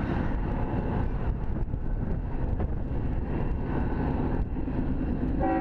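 Steady low rumble of an approaching BNSF diesel freight train, still out of sight around the bend, heard between blasts of its horn. A faint horn note comes through about four seconds in.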